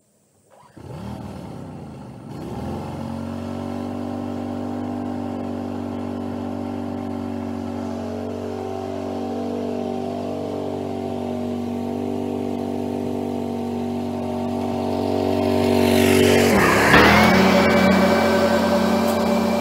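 John Deere riding lawn mower engine starting up about a second in and settling into a steady run. Near the end it grows louder and passes close by, its pitch dipping and rising, and a high whine follows.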